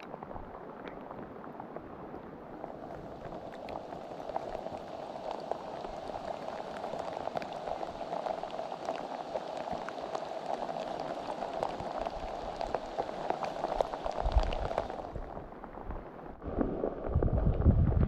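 Steady rain falling, with many small drop ticks over a hiss. Near the end, wind buffets the microphone with a loud low rumble.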